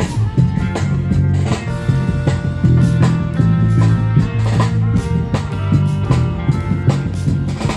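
Live street band playing: acoustic guitar with a drum beat and sustained low notes underneath.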